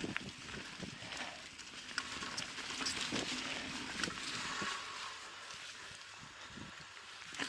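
Mountain bike riding over a rough dirt and rock trail: tyres crunching and the bike rattling and knocking over bumps, with wind noise, louder for a couple of seconds in the middle.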